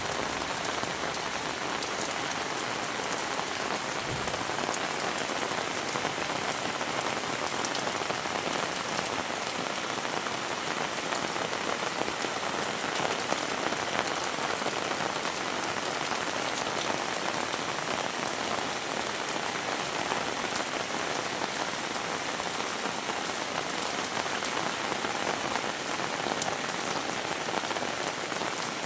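Heavy rain falling steadily: a dense hiss of rain with many small, sharp drop impacts.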